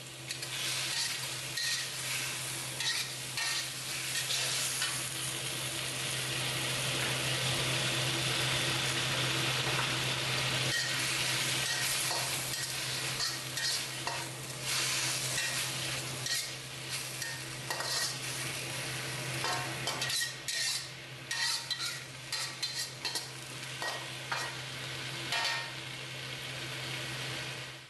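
Rice noodle rolls and bean sprouts sizzling in a steel wok while a metal spatula scrapes and clinks against the wok, stirring and tossing them. A steady low hum runs underneath.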